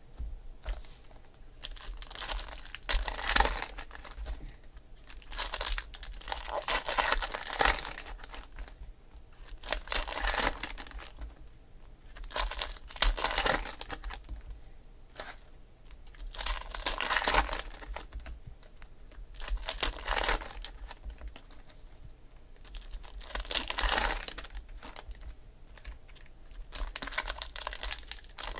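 Crinkly plastic-foil trading-card pack wrappers being torn open and crumpled by hand, in about eight separate bursts of crinkling a few seconds apart.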